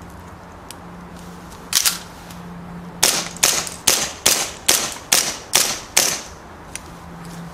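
Tokyo Marui Night Warrior gas blowback airsoft pistol firing while emptying a magazine: a single shot about two seconds in, then a quick string of eight shots, about two and a half per second. Each shot is a sharp crack.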